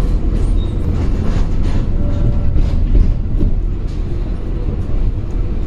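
Tram running on its rails, heard from inside the passenger car: a steady low rumble with light rattles and clicks.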